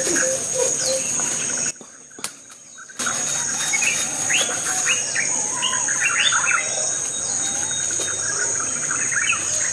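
Several birds chirping and calling in short notes, busiest in the middle, over a steady high-pitched drone of insects. The sound cuts out almost entirely for about a second near two seconds in.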